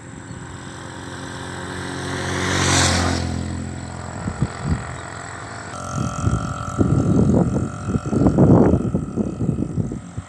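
A motor vehicle passes close by, its engine getting louder to a peak about three seconds in, then fading. In the second half come uneven low rumbling knocks.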